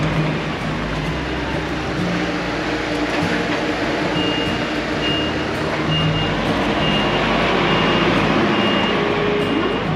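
Truck diesel engine running at low speed while it manoeuvres a semi-trailer, with a reversing alarm starting about four seconds in and beeping steadily, about eight high beeps a little under a second apart.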